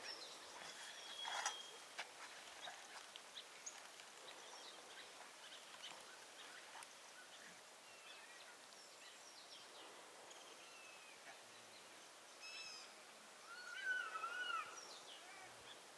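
Faint, scattered bird chirps over quiet outdoor background noise, with a few soft clicks early on. A louder wavering animal call comes near the end.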